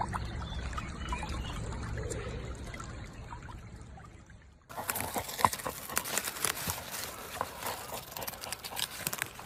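Low rumbling and trickling of a shallow stream where a husky lies, fading away. Then, after a sudden change a little past halfway, a dense crackling and crunching as a dog digs and bites into dry, clumpy soil.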